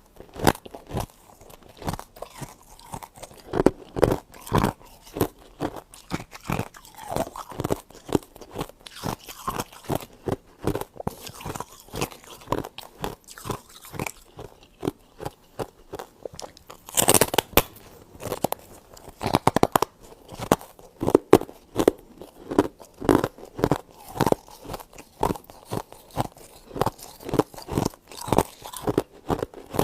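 Freezer frost being bitten and chewed close to the microphone: a continuous run of short, crisp crunches, with a couple of louder crunches a little past halfway.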